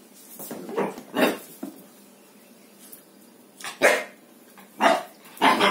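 Three-month-old pit bull puppy giving about five short, sharp barks, spaced irregularly.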